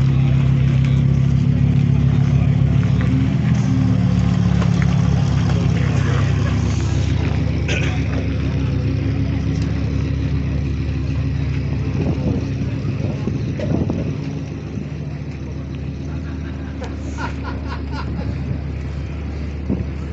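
A car engine running at idle with a deep, steady rumble, rising briefly in pitch about three seconds in and growing quieter over the last several seconds.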